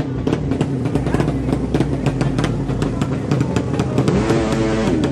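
200cc sleep-engine drag bike running at the start line, its exhaust giving a loud, fast, uneven crackle, with a short rise in engine pitch about four seconds in.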